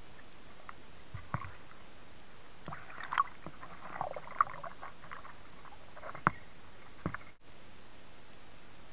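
Underwater ambience picked up by a camera in its waterproof housing: a steady faint hiss with scattered clicks, crackles and a few sharp ticks. The sound drops out for an instant about seven seconds in.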